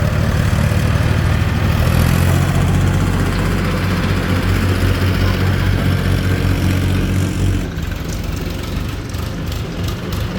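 Diesel tractor or backhoe engine running steadily with a low chug, easing off a little about eight seconds in.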